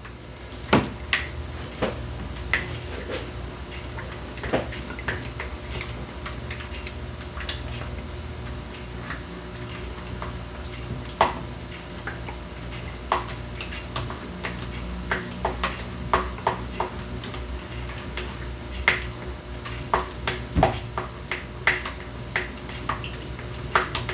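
A utensil stirring cheese sauce in a pot, with irregular clicks and knocks against the pot over a steady low hum, as shredded Monterey Jack is worked in and melts.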